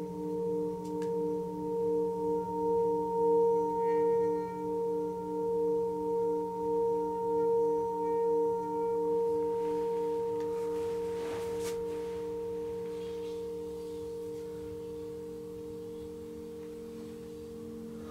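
Metal singing bowl ringing, several steady tones held together with a slow pulsing wobble, gradually fading. A brief soft scraping noise comes about eleven seconds in.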